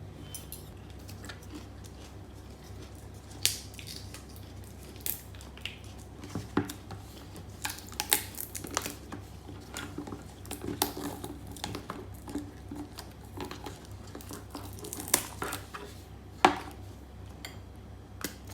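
Cutlery and dishes clinking and knocking in irregular taps, with sharper knocks about eight seconds in and again near the end, over a low steady hum.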